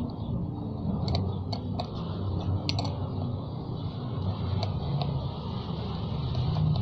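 Light metallic clicks as a small wrench and pliers tighten the nut onto a motorcycle inner tube's valve stem, scattered and irregular, heard over a steady low motor rumble.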